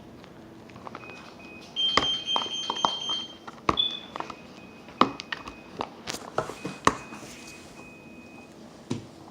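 Slime being squeezed and worked by hand, giving a string of sharp sticky clicks and pops for several seconds. Faint steady high-pitched tones sound behind it in places.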